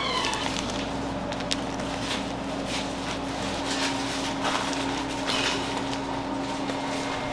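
Kitchen work sounds: a steady machine hum under scattered light clicks and knocks, with a short falling squeak at the very start.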